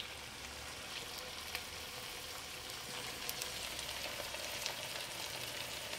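Chicken feet and gram dhal frying in oil with onion, tomato and masala: a steady sizzle with scattered small crackles.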